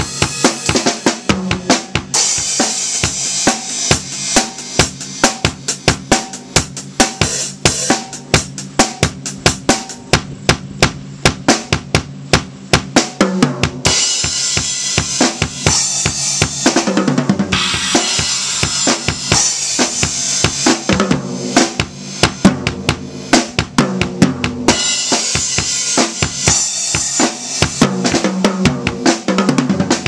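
Pearl drum kit played in a fast, steady groove: bass drum, snare and cymbals struck densely, with stretches of loud cymbal wash and several quick runs down the toms that fall in pitch.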